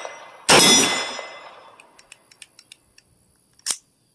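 A single shot from a Foxtrot Mike FM9 9mm pistol-calibre carbine, the last round in the magazine, with a long echo that fades over about a second and a half. Several faint light clicks follow, then one sharp click near the end.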